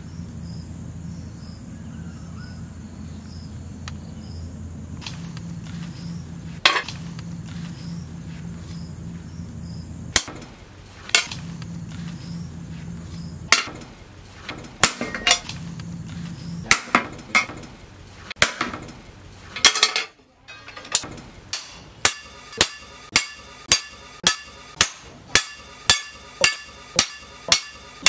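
Hand hammer striking a steel blank cut from a tractor disc plough on a post anvil. There are a few scattered blows over a steady low hum at first, then a run of regular, sharp metallic strikes about two a second near the end.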